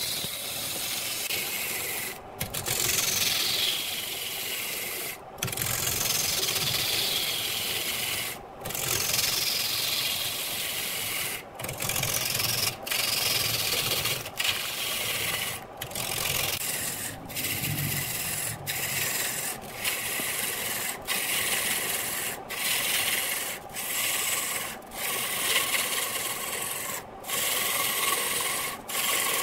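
Turning gouge cutting into a large block of wood spinning on a wood lathe: a continuous rough, hissing scrape as shavings peel off, broken by brief gaps every second or few.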